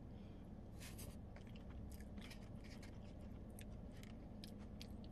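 Close-up chewing of a wet burrito, with scattered short wet mouth clicks, and a fork scraping food from a styrofoam box, over a low steady hum.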